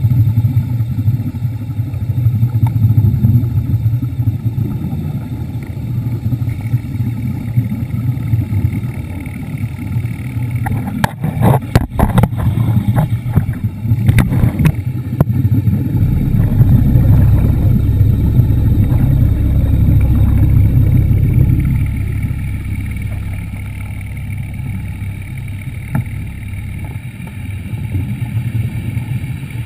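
Underwater scooter's motor and propeller running with a steady low hum, heard underwater, with a cluster of clicks and knocks about eleven to fifteen seconds in. The low rumble grows heavier in the middle and then eases off.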